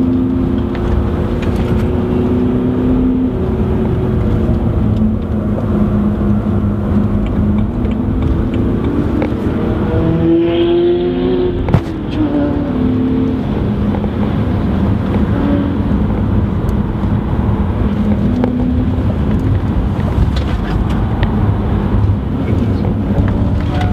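BMW 118d four-cylinder turbodiesel engine and road noise heard from inside the cabin while driving hard on track. The engine note shifts with the revs, climbing about ten seconds in, and a single sharp knock comes near the middle.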